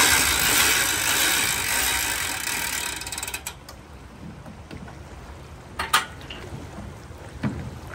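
Boat trailer hand winch ratcheting rapidly as its strap pays out while a drift boat is slid off the trailer into the river, loudest at first and thinning over about three seconds into scattered clicks. A few sharp knocks follow, the loudest about six seconds in.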